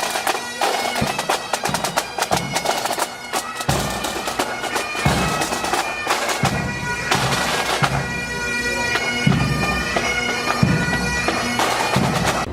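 Pipe band playing: bagpipes sounding a melody over their steady drones, with rattling snare drum strokes and low bass drum beats.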